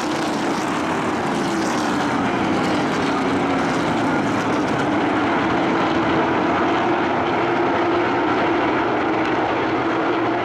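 A field of race pickup trucks running at speed around the track: a loud, steady drone of many engines together, its pitch sinking and rising a little as the pack goes around.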